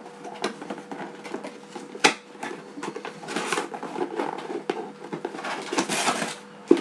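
Cardboard shipping box being opened by hand: scattered taps, scrapes and rustles of the flaps and packing, with one sharp knock about two seconds in. A steady hum from a small electric fan runs underneath.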